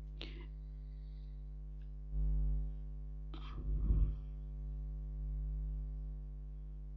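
Steady electrical mains hum on the recording. A low thump comes about two seconds in, and a short noise follows about a second later.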